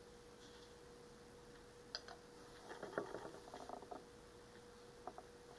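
Near silence: a faint steady hum, with a few light clicks and rustles in the middle.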